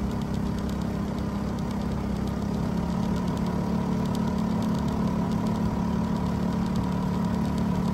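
Small boat outboard motor running steadily while the boat is under way.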